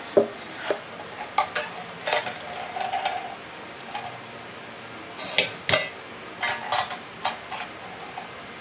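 Clinks and knocks of coffee gear being handled and set down: a stainless steel pitcher and a French press plunger lid against the counter. There are about fifteen separate hits, one followed by a short ringing tone about two seconds in.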